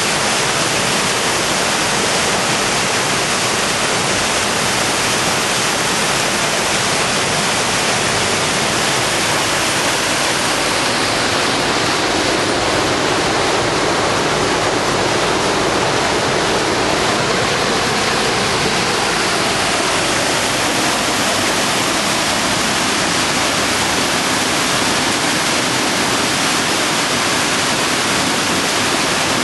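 Loud, steady rush of water, a continuous even hiss with no change over the whole stretch.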